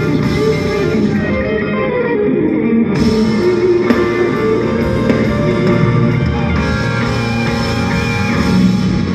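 Live band music played through an arena sound system and heard from the stands, with guitar to the fore over drums and bass.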